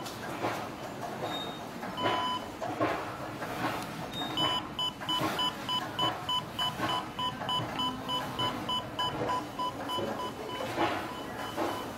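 Lift hall call panel sounding an electronic beep once, then the same beep repeating quickly, about three times a second, growing weaker near the end, over station background noise and clicks.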